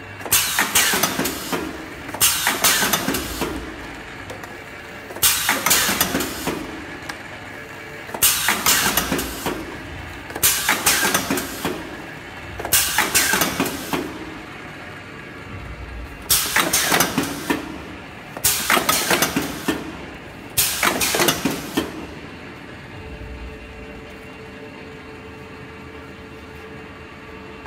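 Pneumatic box-packaging machine cycling: nine bursts of air hiss and mechanical clatter, one every two to three seconds, then it stops about three-quarters of the way through and only a steady low hum remains.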